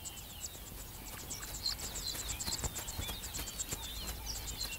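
Outdoor savanna ambience: small birds chirping in quick, high twitters, with scattered faint clicks and insect ticking.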